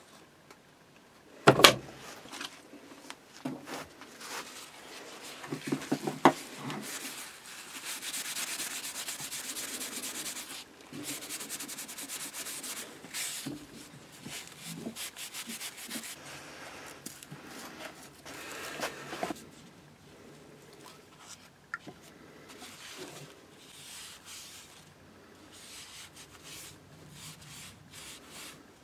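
Paper towel rubbing the steel handles of a pair of pliers while cold bluing them, in scrubbing strokes, steadiest a third of the way in and quieter and more broken toward the end. A couple of loud knocks on the wooden bench come about a second and a half in.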